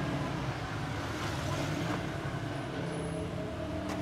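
Street traffic: a small motor vehicle's engine running steadily, with one sharp click near the end.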